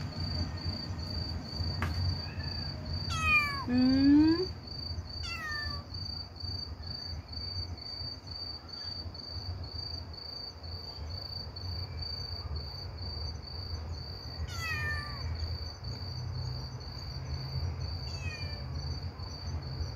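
Kitten meowing in a handful of short calls that fall in pitch, a pair about three to five seconds in and more near fifteen and eighteen seconds, over a steady pulsing chirp of crickets.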